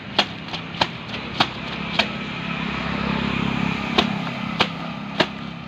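Wet, soapy clothes being scrubbed and slapped by hand against a concrete platform, a sharp slap about every 0.6 seconds with a pause midway. Behind it is a steady low hum that swells in the middle.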